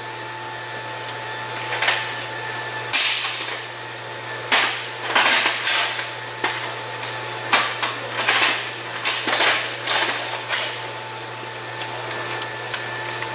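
Irregular sharp clicks and knocks of hand tools and metal parts being handled while engine-bay parts are taken apart, over a steady low hum.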